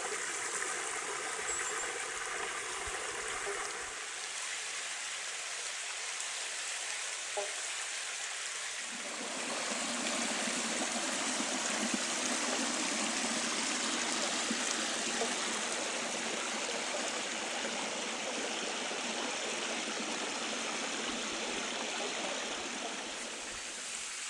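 Creek water trickling and running over granite rock, a steady rush that becomes fuller and deeper about nine seconds in.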